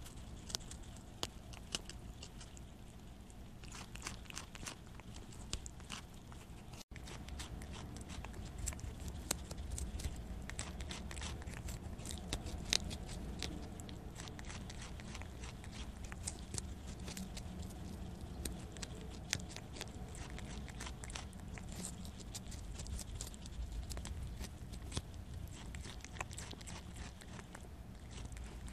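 Prairie dog biting and chewing a piece of Korean melon right at a lapel microphone clipped to it: many small sharp crunches and clicks of its teeth, with a brief break about seven seconds in.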